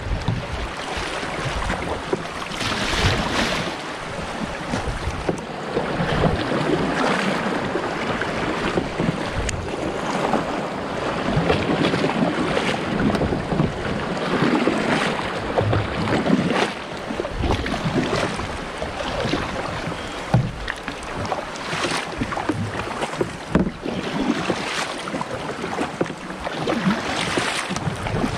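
Double-bladed kayak paddle strokes, the blades dipping and splashing into the water every two to three seconds, over the wash of water along a loaded kayak's hull, with wind noise on the microphone.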